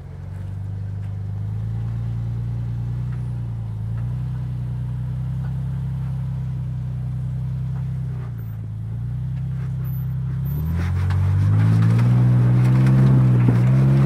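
Jeep Wrangler Rubicon engine running at low revs as it crawls up a rock ledge, then revving up about ten seconds in under a burst of throttle to bump over the ledge. Its pitch rises and it grows louder.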